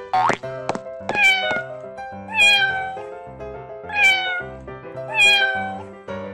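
A cat meowing four times, each meow falling in pitch, over cartoon background music.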